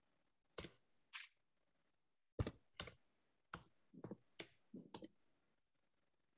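Computer keyboard being typed on: about ten faint, irregular keystrokes.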